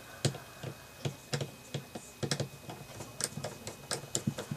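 Light, irregular clicks and taps of a screwdriver turning the grip screw into a Ruger SP101 revolver, with the tool and screw clicking against the metal, a few clicks a second.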